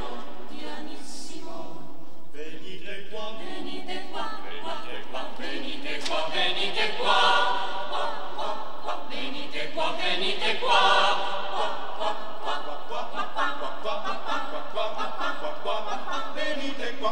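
Mixed choir of women and men singing unaccompanied, with the voices swelling louder about six and eleven seconds in.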